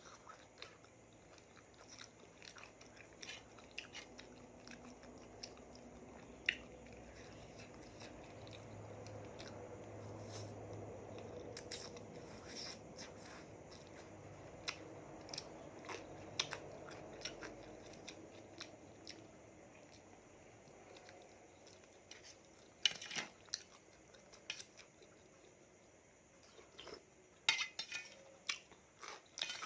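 A person chewing and eating spicy raw seafood salad, with soft wet mouth sounds and scattered sharp clicks and crunches, heard faintly and close up.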